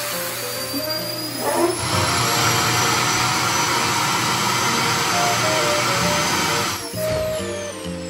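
Sanyo vacuum cleaner running with its nozzle buried in a futon, sucking the air out so the futon collapses flat. The rush gets louder about two seconds in. Near the end it cuts off and the motor whine falls as it spins down, with background music underneath.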